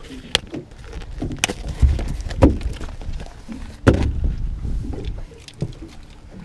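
A string of irregular knocks and thumps on a carpeted boat deck as a freshly landed flathead is handled with lip grips and flaps on the floor. The heaviest thump comes about four seconds in.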